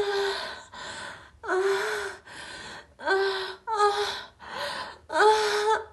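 A woman gasping and moaning in a steady rhythm of heavy breaths. Five loud voiced gasps, each held for about half a second, alternate with quieter breathy exhales.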